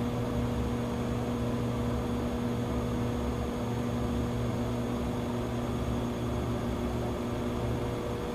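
Steady cockpit hum of an airliner flight simulator, a low rumble with a constant droning tone and a light hiss, unchanging throughout.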